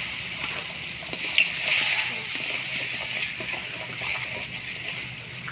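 Spices, green chillies, turmeric and salt sizzling in hot oil in a wok as they are stirred with a flat metal spatula; a short tap of the spatula on the wok about one and a half seconds in.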